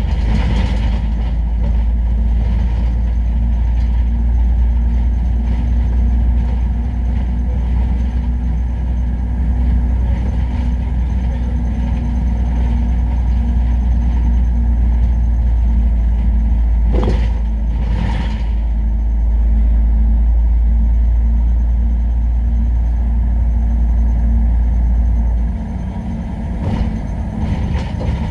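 City bus engine and road noise heard from the driver's cab while under way: a steady low drone that eases off near the end as the bus slows or coasts. Two short rattles or knocks come about two thirds of the way through.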